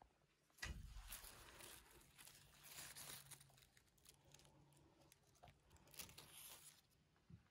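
Faint rustling and crinkling close to the microphone, starting suddenly about a second in and going on irregularly until near the end, over a low steady hum.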